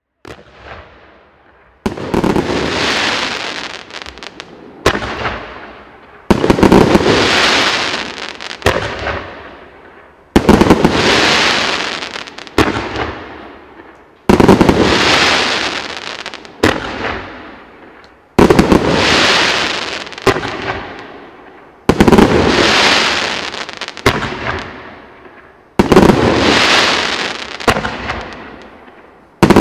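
A 100-shot 30 mm fan fireworks cake firing. Roughly every four seconds a volley pops off sharply, then a dense wash of crackling from the crackling-flower stars follows and fades over a few seconds, repeating about eight times.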